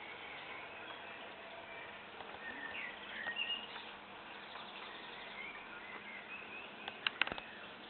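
Faint bird chirps over a steady hiss, with a few sharp clicks near the end.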